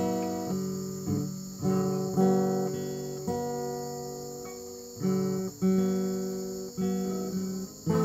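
Background music of plucked string notes and chords, each starting sharply and dying away, about one or two a second.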